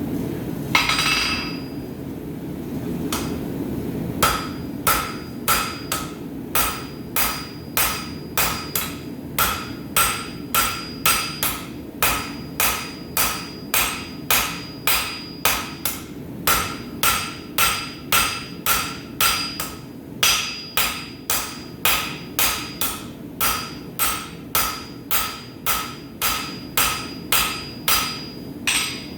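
Blacksmith's hammer striking hot steel on an anvil at a steady rhythm of about two blows a second, each blow ringing, starting about four seconds in. A steady low rumble runs underneath.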